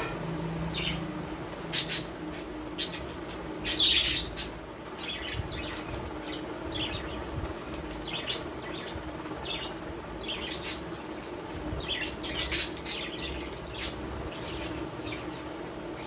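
Small caged pet parrots chirping and squawking in short, sharp calls scattered throughout, with the loudest burst of calls about four seconds in. A steady low hum runs underneath.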